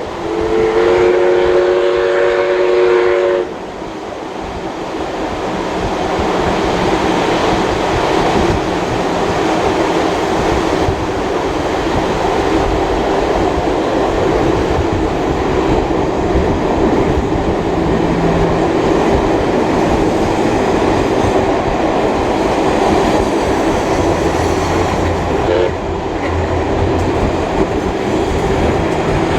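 Steam locomotive 5917's whistle sounds a held chord of several tones that cuts off about three and a half seconds in. It is followed by the steady running noise of the train's carriages rolling along the track.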